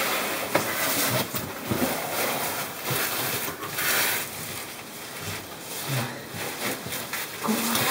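Scraping and rustling of a caver's oversuit and wellington boots against rock while squeezing up a tight rift, with scattered knocks over a steady hiss and a couple of short voice sounds.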